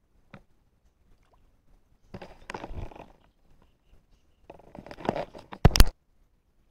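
Close handling noise: rustling and scraping from hands working a light spinning rod, line and tiny jig right by the microphone, in two stretches, ending with two sharp knocks close together near the end.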